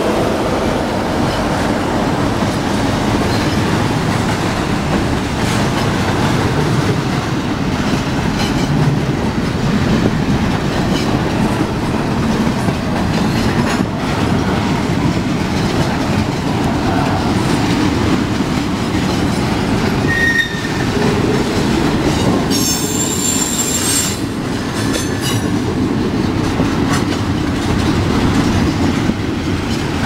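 Double-stack intermodal well cars of a freight train rolling past close by, a steady loud noise of steel wheels on rail. There is a brief high-pitched wheel squeal about three-quarters of the way through.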